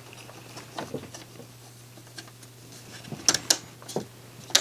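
Small plastic and metal clicks and taps of a CD player's disc-tray front trim being pressed into place by hand. There are a few faint clicks about a second in, then several sharper clicks in the second half, the loudest just before the end as the trim snaps in.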